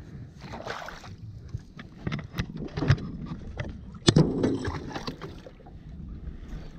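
Fishing gear and camera being handled in a small boat: scattered clicks, knocks and rustling, the sharpest click about four seconds in, over a low wind rumble on the microphone.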